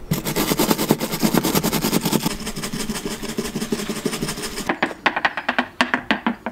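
Wire brush scrubbing fast over a ground-out patch of fibreglass boat hull, a dense scratchy rasp of quick strokes. Near the end it gives way to a run of sharp, evenly spaced ticks, about four a second.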